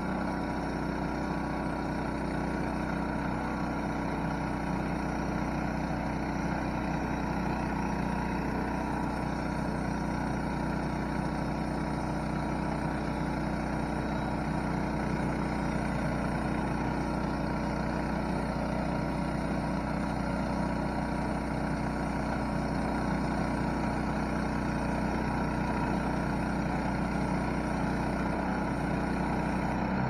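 Hudson Little Oscar band sawmill sawing through a red oak log: its small gasoline engine runs steadily under load while the band blade cuts along the length of the log.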